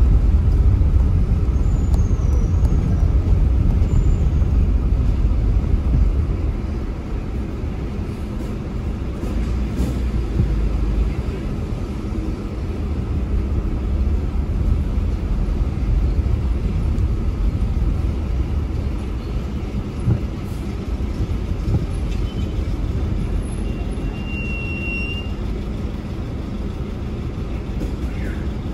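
Steady low rumble of a car being driven through city traffic: engine and road noise, easing a little after about six seconds.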